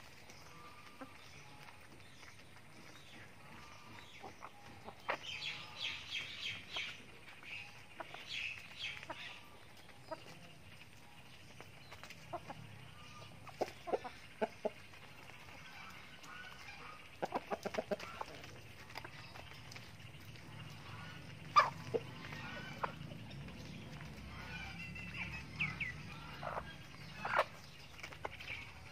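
Backyard chickens clucking softly in short bouts while feeding, with scattered sharp taps of beaks pecking at feed on a plastic tarp; the single loudest tap comes about three-quarters of the way through.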